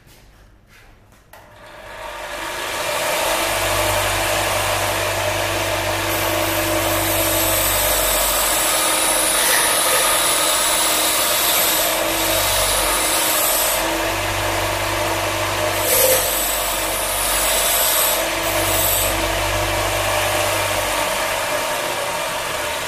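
Bench grinder spinning up and running, with a steel piece held against the grindstone and ground off in several passes across the wheel, the grinding coming and going.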